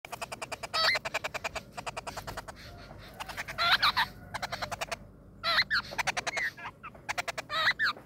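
Songbird nestlings begging in the nest: rapid runs of short, harsh notes, about ten a second, broken four times by louder squawking calls.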